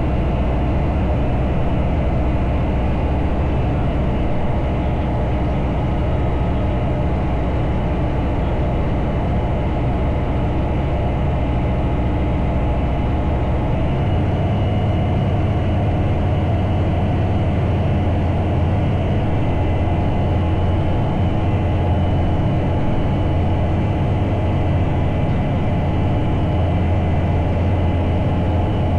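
Bristell Classic light sport aircraft's engine and propeller running steadily in flight, a constant drone. About halfway through, its low note steps up slightly and stays there.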